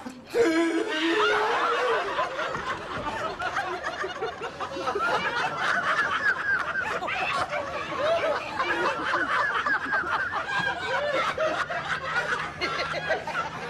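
A crowd of people laughing together, many voices overlapping in contagious laughter, with a loud outburst about half a second in.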